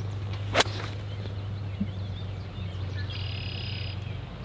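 A 4-iron striking a golf ball out of the rough: one sharp crack about half a second in.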